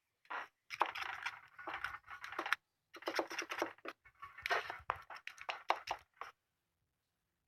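Typing on a computer keyboard: quick runs of key clicks in several bursts, stopping about six seconds in.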